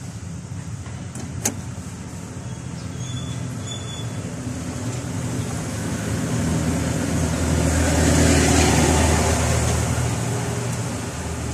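Road traffic: a vehicle passes by, its noise swelling to loudest about eight seconds in and then fading, over a steady low engine hum. A single sharp click sounds about a second and a half in.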